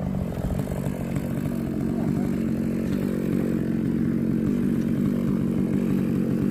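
A small engine running steadily at an even speed, as on firewood-cutting or splitting equipment.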